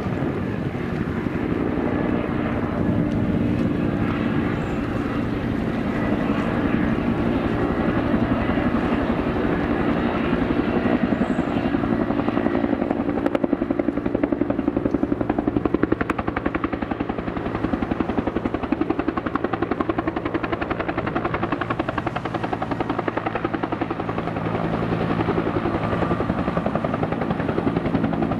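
Bell 212 medium helicopter with the single-engine Eagle Single conversion running at close range, its two-bladed main rotor beating steadily over the turbine's hum as it swoops in and settles into a low hover. The rotor sound grows a little louder about halfway through and again near the end.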